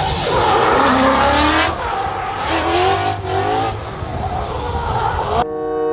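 Drift car engine revving up and down as the car slides, with tyres squealing and skidding. About five and a half seconds in it cuts off abruptly to a short chiming mallet jingle.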